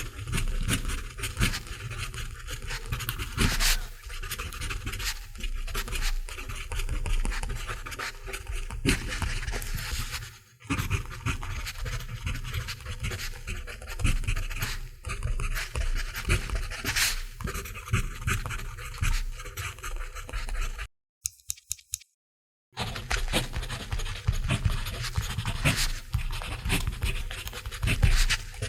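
Mechanical pencil writing on paper: a continuous run of quick scratchy strokes of lead on paper. There is a brief dip about ten seconds in and a pause of under two seconds about two-thirds of the way through.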